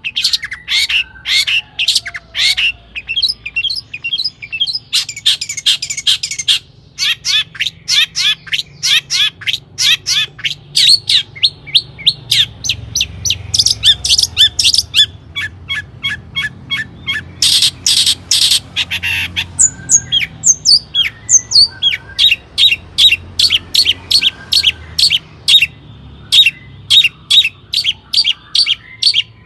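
Long-tailed shrike (cendet) singing energetically: a fast, unbroken run of short, sharp high notes, several a second, with a harsher, scratchy stretch a little past the middle.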